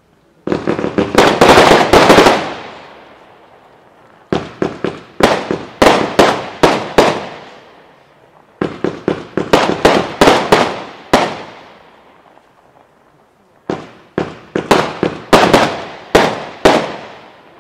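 Fireworks going off in the sky: four volleys of rapid, sharp bangs, each lasting a few seconds, with the echo trailing away in the short pauses between volleys.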